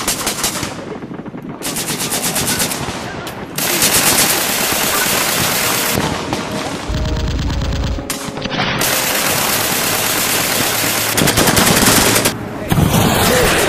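Long bursts of rapid automatic gunfire from a film battle scene, broken by a few short pauses.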